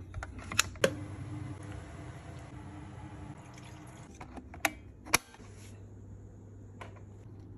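The clean water tank of a Dreame H12 Core wet-dry vacuum is handled with a few sharp plastic clicks, then tap water runs steadily into it for about three seconds. Two more sharp clicks follow about halfway through.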